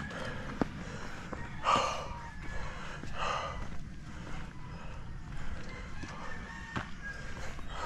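A chicken calling twice, two short calls about a second and a half apart, over steady low outdoor rumble.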